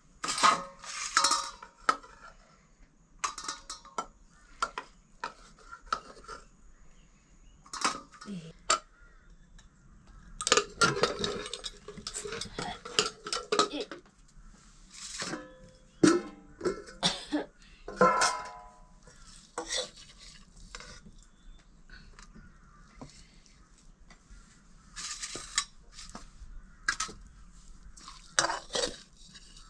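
Dishes, pots and cutlery clinking, knocking and scraping at irregular intervals, some strikes ringing briefly like metal.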